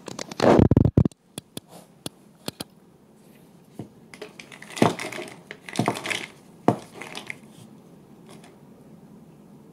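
Handling noise from a metal snack can being gripped and turned by hand: a loud crackling rustle in the first second, then scattered clicks and short scraping knocks of fingers and the can against a surface, with quiet stretches between.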